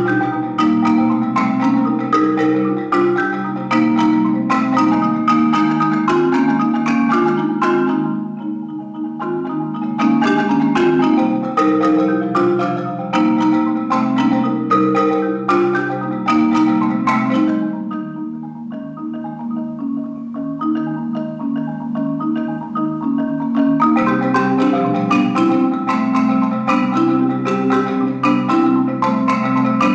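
Solo marimba struck with mallets in fast, driving rhythmic patterns. The playing drops to a softer, sparser passage about eight seconds in and again from about eighteen to twenty-four seconds, then returns to full, dense strokes.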